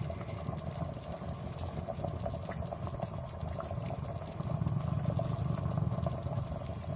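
Thick chicken nihari gravy simmering in a pan, bubbling steadily with many small pops.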